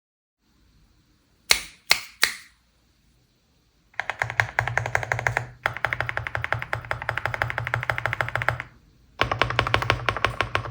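Rainy 75 mechanical keyboard with cherry-profile keycaps being typed on fast: three sharp key clacks about a second and a half in, then rapid continuous typing from about four seconds with a short pause near nine seconds before it resumes.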